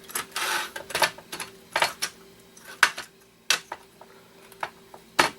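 Hard parts of a Nintendo GameCube's motherboard assembly being handled during teardown: a short scraping rustle near the start, then sharp, irregular clicks and knocks about a second apart as metal and plastic pieces are moved and set down.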